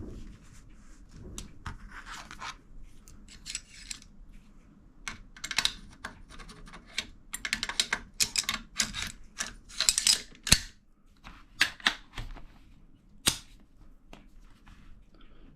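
Metal parts of an AR-15 bolt carrier group and charging handle being handled and fitted together: irregular sliding scrapes and metallic clicks, with two sharp clicks about ten and a half and thirteen seconds in.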